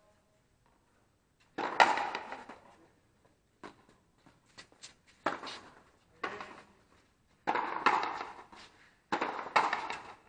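Frontenis rally: the rubber ball is struck by strung rackets and smacks off the fronton wall. The sharp hits come roughly every second or so, each with a short echo.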